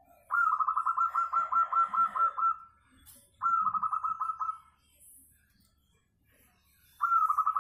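Caged zebra dove (perkutut) cooing in three phrases of quick, evenly spaced notes: a long run of about a dozen notes, a shorter one a second later, and a third starting near the end.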